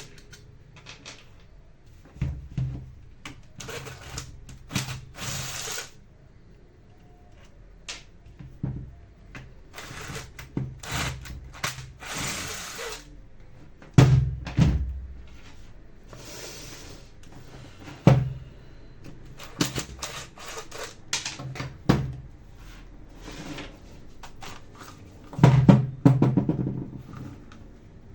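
Hand work on a Black+Decker 7750 angle grinder at the bench: scattered clicks, knocks and short scraping noises as its parts and screws are handled, with a few heavier thunks spread through.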